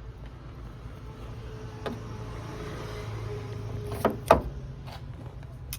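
A 10-amp blade fuse being pulled from a plastic fuse box, heard as a few sharp clicks and knocks, the loudest just after four seconds in, over a steady low hum.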